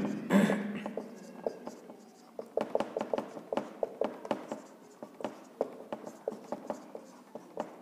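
Marker pen writing on a whiteboard: a quick run of short strokes and taps of the tip on the board, starting a couple of seconds in.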